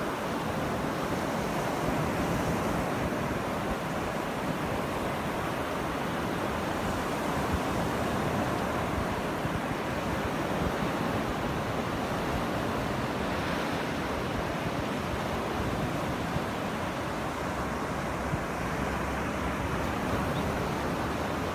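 Small surf breaking and washing up over flat sand, a steady rush of water, with wind buffeting the microphone.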